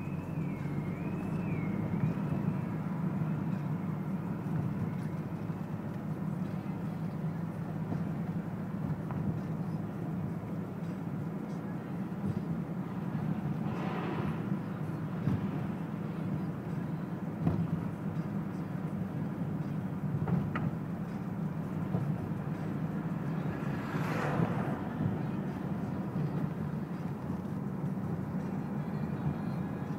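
Steady low engine and road rumble inside a moving car. A faint warbling high tone wavers in the first few seconds, and two brief whooshes swell up about halfway through and again about two-thirds through.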